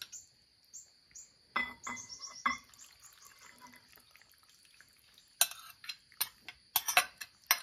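Kitchen utensil clinking against a bowl as tom yum soup is ladled over wontons: three ringing clinks about a second and a half in, then a run of sharp taps near the end.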